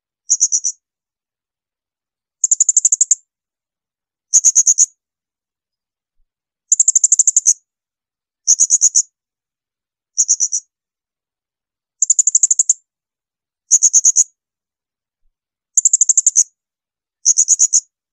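Blue-crowned hanging parrot (serindit) giving shrill, high-pitched call bursts. Each burst is a rapid trill of sharp notes lasting about half a second to a second, repeated ten times at intervals of roughly two seconds, with silence between them.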